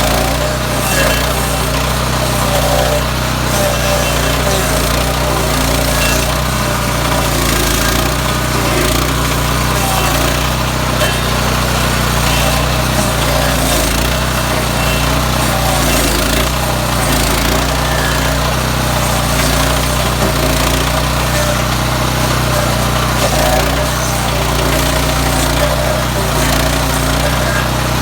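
Stump grinder's small gas engine running steadily while its cutting wheel grinds a tree stump down, with a dense chattering noise over the engine hum.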